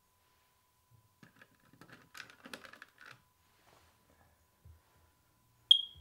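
Plastic smoke alarm being fitted and twisted onto its ceiling mounting base, with light clicking and scraping of plastic on plastic. Near the end the alarm gives a single short, high-pitched beep.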